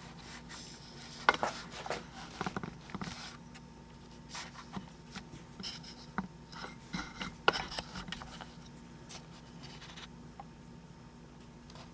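Handling noises: scattered light clicks, taps and rubbing as the metal window guide channel and its brackets are moved about, busiest about a second in and again past the middle.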